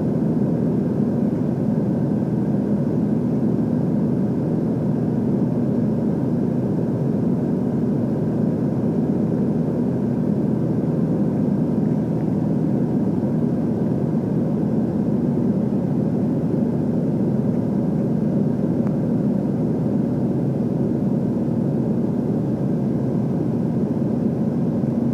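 Steady drone of a single-engine light aircraft's piston engine and propeller in flight, heard from inside the cockpit, holding an unchanging note.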